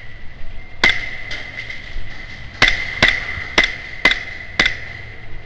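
Airsoft gun fired in single shots: six sharp cracks, one about a second in and then five in quick, uneven succession over the next two seconds.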